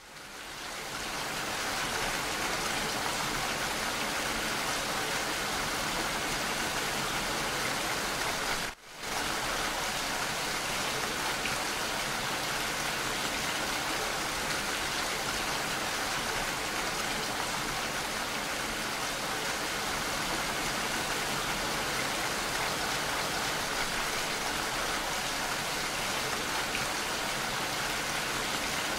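A steady, even rushing hiss like rain, fading in over the first second or two, with a brief dropout about nine seconds in.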